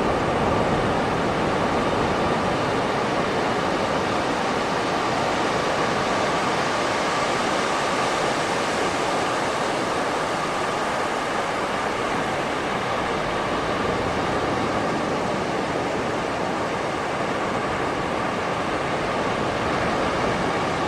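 Calm sea waves washing onto a beach: a steady rushing wash of surf with only slight swells in loudness.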